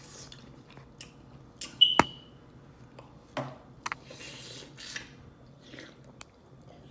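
Close-up eating sounds of someone chewing seafood boil mussels, with wet mouth noises and scattered small clicks. One sharp click with a brief ring about two seconds in is the loudest sound.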